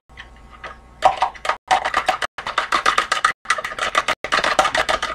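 A fork beating an egg in a plastic bowl: fast, steady clicking of the fork against the bowl, starting about a second in.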